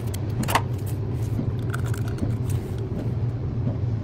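Steady low machine hum, with a single sharp snip of scissors cutting a plastic softener packet about half a second in.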